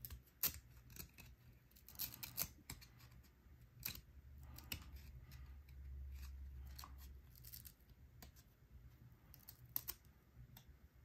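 1993 SkyBox trading cards being handled and sorted by hand: faint, scattered clicks and scrapes of card stock sliding and being laid down on a stack.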